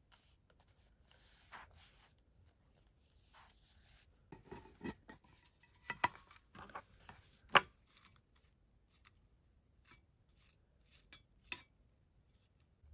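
Paper and craft tools handled on a desk during collage work: light paper rustling with scattered sharp clicks and taps, the loudest a single sharp click about seven and a half seconds in.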